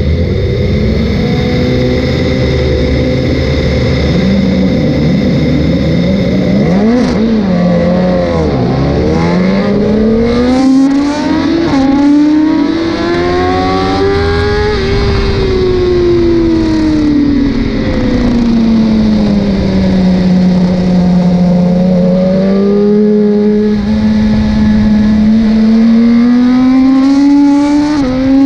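BMW S1000RR inline-four engine heard from on board, held at high revs with small blips for about seven seconds, then dipping and surging as the bike launches. It pulls away hard, its pitch climbing, falling back and climbing again as it accelerates and slows.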